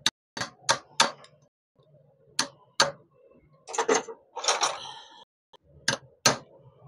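Pliers tapping the metal-capped end of a screwdriver held on a motorcycle cylinder head's valve spring retainer: a series of sharp metallic taps knocking the valve cotters down into their seat. In the middle, about a second of clinking and rattling as tools are moved in a metal tool tray.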